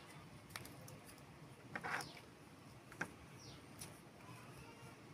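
Faint handling noises of fingers working a small red paper cracker strip: a few small clicks and a short rustle about two seconds in.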